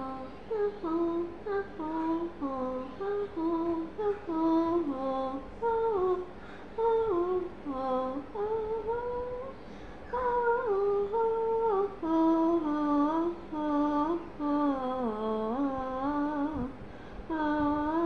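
A girl's voice humming a wordless tune, held notes stepping up and down with short breaths between phrases.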